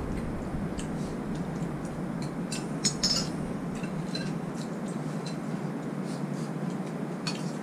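Spoons and tableware clinking now and then against bowls and plates during a meal: a few light, short clicks over a steady background hum, the sharpest a little under three seconds in.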